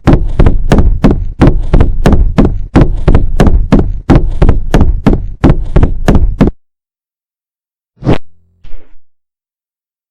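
A fast run of loud knocks, about three or four a second, stopping after about six and a half seconds, then two more single knocks near the end.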